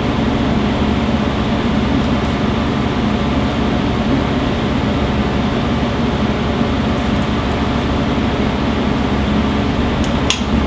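Steady rushing hum of a commercial kitchen's ventilation fan, with one short click near the end.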